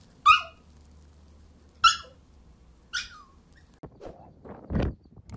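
Small puppy giving three short, high-pitched yaps over about three seconds. Near the end, gusts of wind buffet the microphone.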